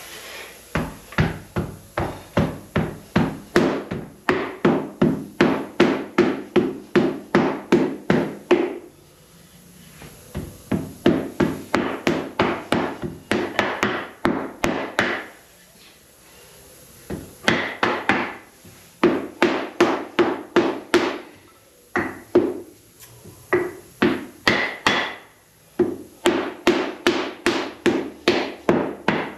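Wooden hand rammer pounding molding sand into a foundry flask to pack the mold, in quick runs of strikes about three or four a second with short pauses between runs.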